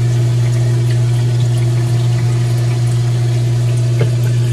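Manitowoc SMS050A undercounter ice machine running in its freeze cycle: a steady, loud machine hum with water pumping and splashing inside the cabinet. Some of the water is streaming down the back wall instead of spraying where it should.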